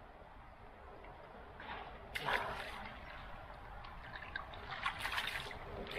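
A hooked fish on the line being dipped and swished in shallow river water to rinse off mud: light splashing and sloshing, starting about two seconds in and coming again near five seconds.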